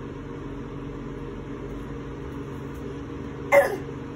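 Steady mechanical hum, like a running fan, in a small room. About three and a half seconds in, a toddler gives one short vocal sound that falls in pitch.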